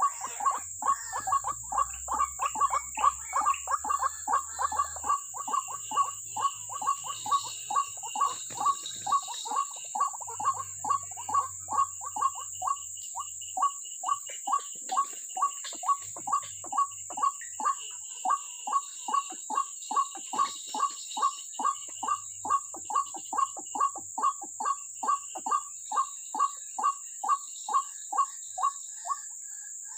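White-breasted waterhen calling: a long, even series of short notes, about two a second, over a steady high-pitched insect drone.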